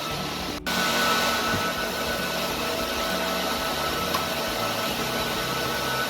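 Steady whir of the cooling fans on racks of radio and TV transmitter equipment, with a few steady hum tones. The sound drops out for an instant about half a second in.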